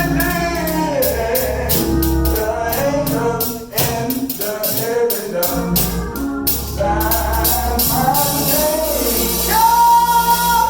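Gospel song with voices singing over a band, a tambourine shaking in a steady beat. Near the end a singer holds one long note.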